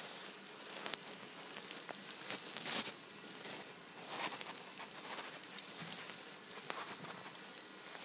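Faint rustling and light ticks from a handheld camera being moved about, over a steady low hiss.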